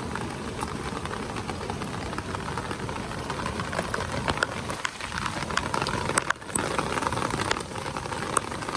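Steady rushing water noise, peppered with many small sharp ticks like drops and splashes, dipping briefly about six seconds in.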